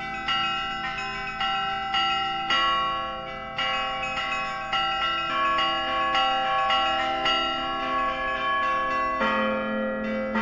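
Russian Orthodox church bells rung as a zvon: several bells of different pitches struck in a quick, repeating pattern, about two main strikes a second, each ringing on under the next. A deep bell comes in strongly about nine seconds in.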